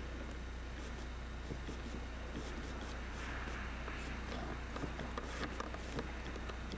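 Camcorder handling noise: scattered light clicks and rubbing from hands on the camera as it pans, over a steady low hum.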